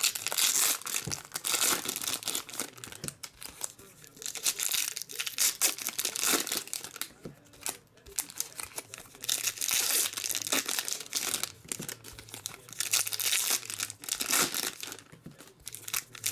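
Foil wrappers of Topps trading-card packs crinkling and tearing as the packs are ripped open one after another, in repeated bursts of crackle with short pauses between packs.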